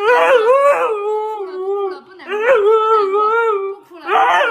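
Siberian husky howling in long calls whose pitch wavers up and down, two full calls with a short gap and a third starting near the end.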